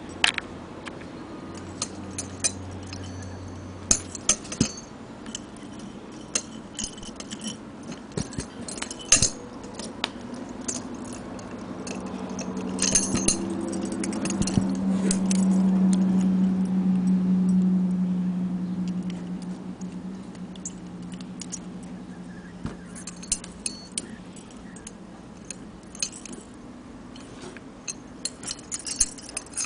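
Metal riding spurs, revolver-shaped with spiked rowels and short chains, clinking and jangling in scattered light clinks as they are handled and set down. A low hum swells up and fades away in the middle.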